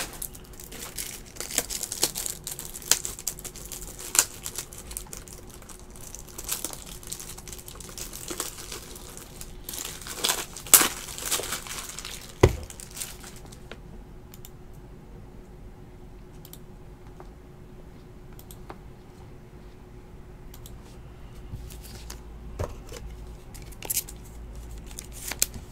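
Trading card pack wrapper being torn open and crinkled, with clicks of cards and plastic top loaders being handled. The crinkling is dense for about half the time, with one sharp tap in the middle, then gives way to sparse soft clicks.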